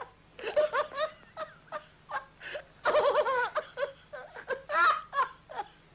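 Two men laughing in repeated fits: a drunk man's helpless giggling, with a second man laughing along.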